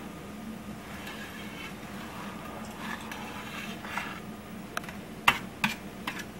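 Spatula scraping and stirring scrambled egg yolks in a stainless steel frying pan, soft and intermittent, with a few sharp clinks of the spatula against the pan near the end.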